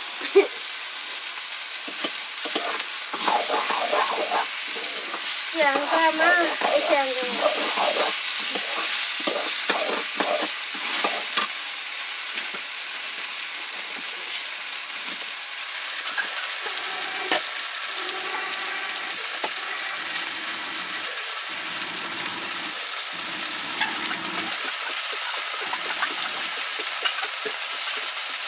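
Rice sizzling as it fries in an iron wok, with a metal ladle scraping and stirring through it in the first half. A brief voice-like sound a few seconds in.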